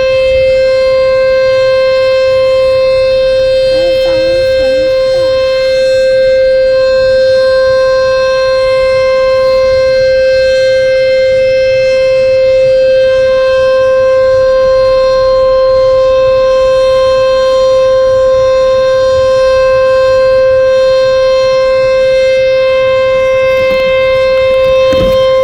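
Sentry 14VB outdoor warning siren sounding a loud, steady single-pitch tone that holds without rising or falling.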